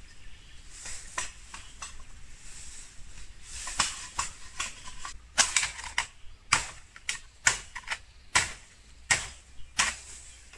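Bamboo being cut with chopping blows: a run of sharp, irregular strikes, faint at first and louder from about four seconds in.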